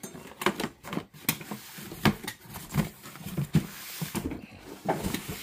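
Cardboard boxes and boxed items being handled and set down: a string of short knocks and rustles.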